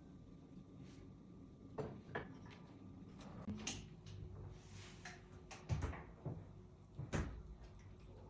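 Quiet room with a series of scattered soft knocks and clicks, like a cupboard door or small objects being handled, several of them close together in the second half.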